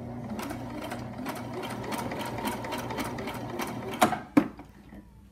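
Husqvarna sewing machine stitching slowly through coiled cotton clothesline rope, its needle ticking about five times a second. About four seconds in it stops, with two sharp clacks close together, the loudest sounds here.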